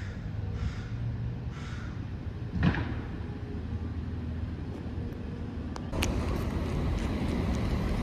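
Outdoor city ambience: a steady low traffic hum, with a couple of short calls in the first three seconds, the sharpest one under three seconds in. About six seconds in, a louder, steady rush of noise sets in.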